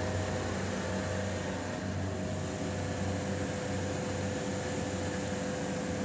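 Steady hum of running chiller plant machinery, with a faint constant whine over it.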